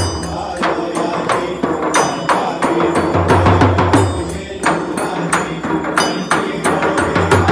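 Live Indian devotional music: a group playing a dholki-type barrel drum and small hand cymbals, with the crowd clapping in time. It keeps a brisk, steady beat.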